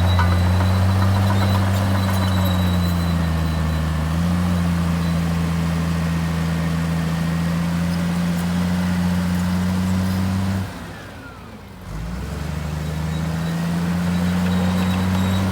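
Heavy diesel engine of earthmoving machinery running steadily with a deep hum. It drops away abruptly for about a second, roughly eleven seconds in, then resumes.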